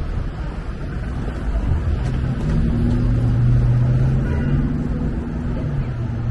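Low rumble of street traffic, with a vehicle's engine hum swelling about two seconds in and fading near the end.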